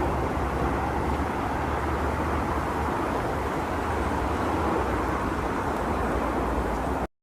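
Steady low rumble without a clear pitch, cutting off suddenly near the end.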